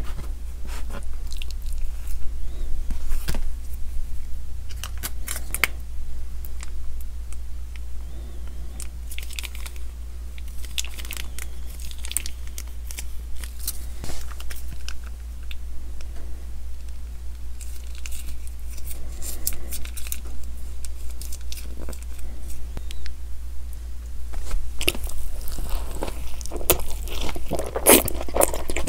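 Close-miked ASMR eating sounds: scattered soft clicks and food handling, then a dense run of loud bites and crunchy chewing into a burger in the last few seconds. A steady low electrical hum runs underneath.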